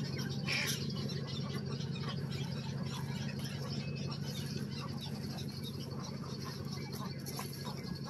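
A roost of egrets (gaulins) calling together: many short croaks and clicks overlapping into a dense chatter, with a steady low rumble underneath.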